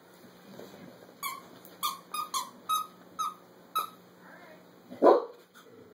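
A dog's squeaky plush toy squeaking as the dog chomps and shakes it: about seven short, high squeaks in quick succession, followed near the end by one louder, lower sound.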